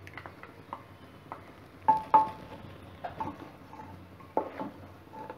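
Plastic spatula scraping ground masala paste into a pressure cooker and stirring it into the vegetables, with scattered light knocks and scrapes against the pot. Two sharp ringing knocks on the cooker come about two seconds in.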